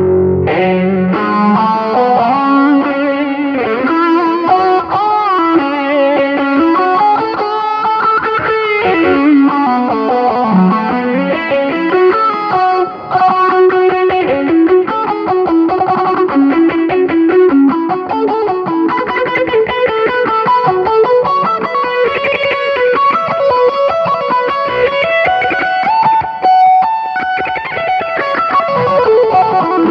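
Electric guitar played through an M-Vave Tank-G multi-effects pedal: a continuous single-note lead melody with slides and bends, in the style of mor lam. The playing briefly drops out about halfway through.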